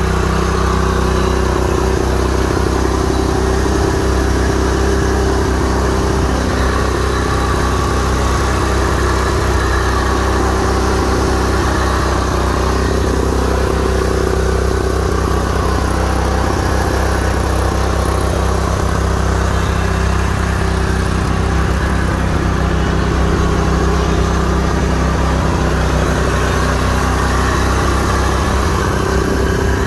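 John Deere riding lawn mower's engine running steadily at an even speed.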